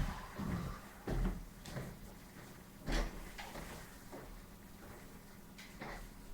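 Several knocks and thumps at irregular intervals in the first three seconds, from objects being handled and set down, then only faint handling noise.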